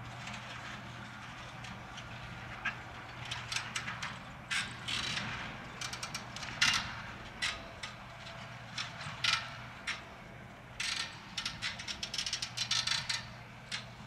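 John Deere 7280R tractor's six-cylinder diesel engine running steadily under ploughing load, with irregular clicking and rattling in clusters from about three seconds in.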